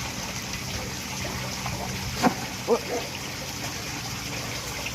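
Water trickling and flowing steadily into a blocked drain, with a couple of short voice calls a little past halfway.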